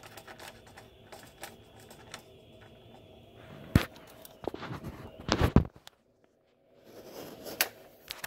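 Handling noise of a phone being fitted into a ring-light phone holder: scattered clicks and rubbing right on the phone's microphone, with two loud knocks around the middle. The sound then drops out for under a second before faint rustling returns.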